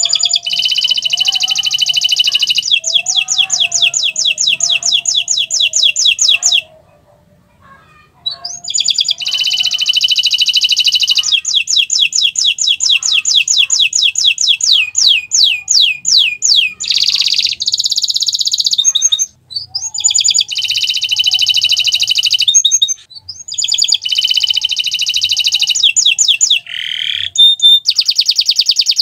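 Domestic canary singing: long, fast rolling trills and rapid runs of repeated notes, high-pitched, in extended phrases broken by a few short pauses.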